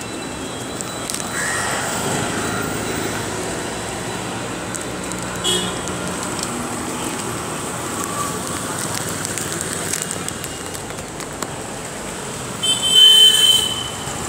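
Steady street traffic noise, with a vehicle horn sounding for about a second near the end, the loudest sound.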